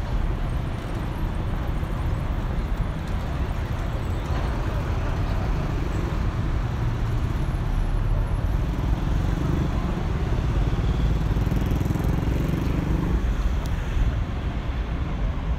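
Road traffic on a busy city street: a steady rumble of cars and motorbikes going by, with a vehicle passing closer and louder about nine to thirteen seconds in.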